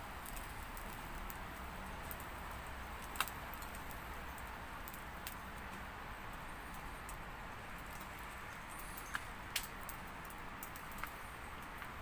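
Wood fire in a small secondary-combustion camp stove crackling, with a few sharp pops, the loudest about three seconds in and several more near the end, over a steady hiss.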